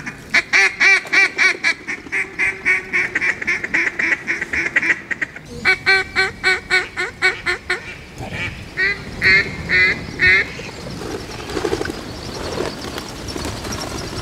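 Duck call blown loudly in long runs of quick quacks, about four a second. It breaks briefly about five seconds in, then comes in shorter bursts that stop about ten seconds in: calling to ducks flying over the timber.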